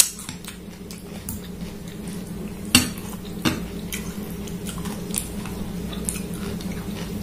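Metal fork and spoon stirring and scraping noodles in a glass bowl, with several sharp clinks of metal on glass, the loudest about three seconds in. A steady low hum runs underneath.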